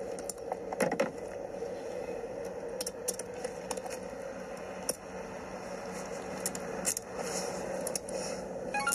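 Clothing rustling and scraping with small clicks as hands search a man's waistband and pants, played back through a screen's speaker. A phone ringtone starts right at the end.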